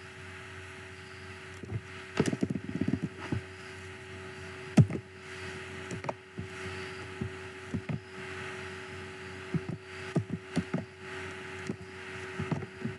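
Computer keyboard keys clicking as a password is typed: scattered single key clicks with a quick run of them about two seconds in, over a steady electrical hum.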